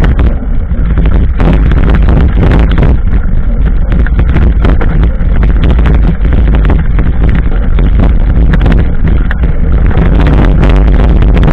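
Heavy wind buffeting and handling rumble on a bike-mounted action camera's microphone, with frequent knocks and rattles as a knobbly-tyred mountain bike rolls over uneven stone paving slabs.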